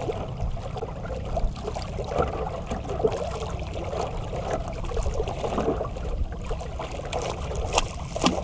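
Sea water lapping and trickling against the hull of a small outrigger boat, over a steady low rumble, with a few sharp clicks near the end.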